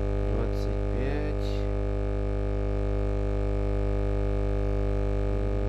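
A steady droning hum made of several held tones, with a short spoken word about a second in.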